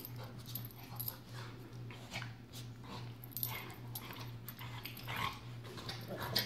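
A Maltese puppy and a large Pyrador (Great Pyrenees–Labrador mix) play-wrestling on a carpet: irregular scuffling with short dog vocal sounds throughout.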